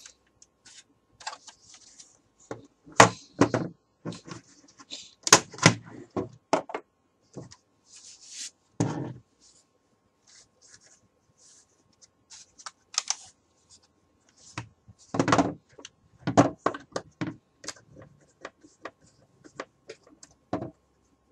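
Plastic toy MP5SD submachine gun being handled: irregular clicks and knocks of plastic parts, with quiet gaps between them.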